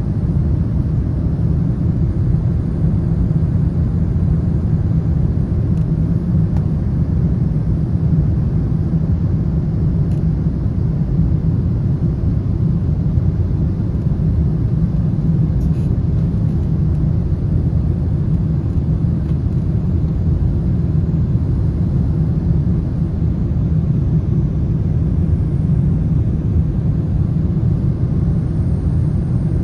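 Airliner cabin noise in flight: the steady low rumble of the jet engines and the airflow over the fuselage, heard from inside the cabin at a window seat beside the engine.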